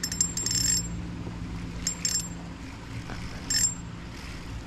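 Spinning reel on an ultralight rod being cranked in three short spells, a high metallic whirring and clicking, as a small hooked fish is reeled in.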